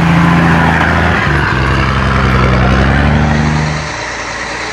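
Heavy diesel engine of a Mercedes-Benz truck running hard under load, its pitch dipping briefly about a second in before it steadies again. Near the end it gives way suddenly to a quieter engine sound.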